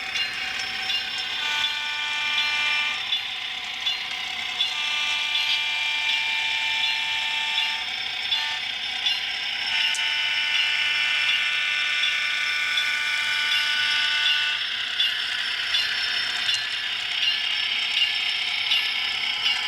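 An HO scale model passenger train runs with a steady clicking and rattling. Its locomotive's onboard sound gives three sustained multi-tone warning blasts: a short one, then two progressively longer ones.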